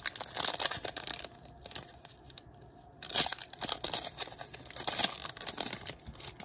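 Crinkling and rustling of a foil-wrapped Panini Classics football card pack and loose cards being handled: a short burst at the start, a quieter moment, then a louder run of crinkling from about three seconds in as the wrapper is gripped.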